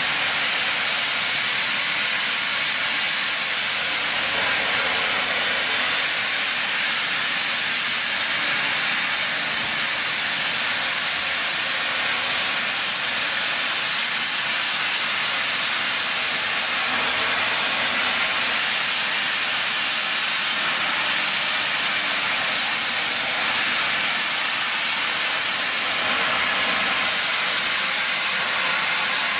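Steam locomotive letting off steam: a loud, steady hiss with no exhaust beats.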